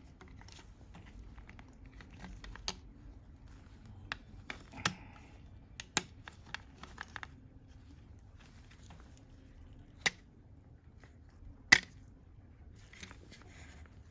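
Scattered handling noises from working on a vacuum cleaner hose and its wiring: sharp clicks and taps with some light crinkling, a handful of louder clicks spread through.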